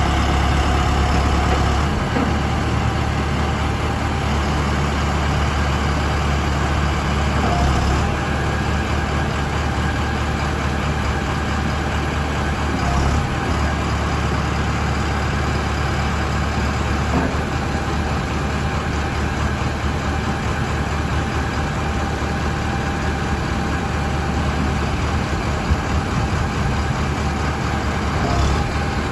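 Backhoe loader's engine running steadily, with an occasional faint knock.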